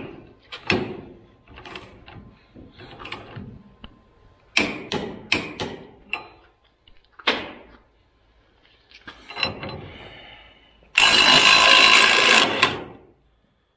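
A sharp click near the start, then scattered clanks and ratcheting clicks from a hand ratchet and torque wrench being worked on a bolt. About eleven seconds in, a Snap-on CT761A cordless 3/8-inch ratchet runs loud under load for under two seconds, breaking loose a bolt torqued to 160 ft-lb.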